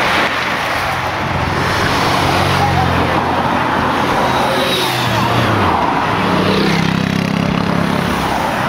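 Race-convoy motorcycles and cars passing close by, one engine after another. The first dips in pitch as it goes past about five seconds in, and a second engine follows it, over a steady rush of noise.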